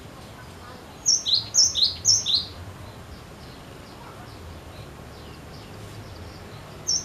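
Cinereous tit (glatik batu) singing: three quick two-note phrases, each a high whistle dropping to a lower one, about a second in, then the song starting again near the end.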